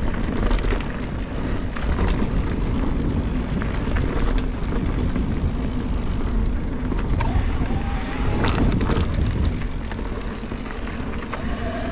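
Mountain bike riding down a dirt trail: wind rushing over the camera microphone and the tyres rumbling over the ground, with scattered knocks and rattles as the bike hits bumps.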